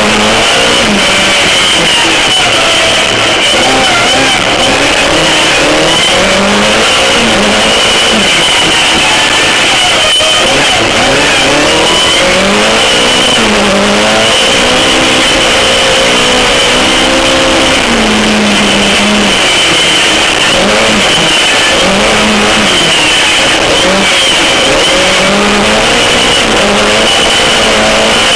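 Race car engine heard from inside the cockpit, revving up and down again and again through gear changes and corners. A steady high-pitched whine runs alongside it.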